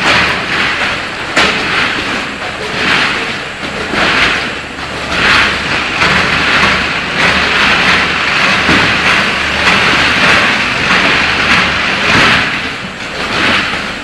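A multihead weigher feeding a vertical form-fill-seal bagging machine runs while packing frozen snack food. It makes a loud, steady mechanical din, with a hissing, clattering swell about every one to two seconds.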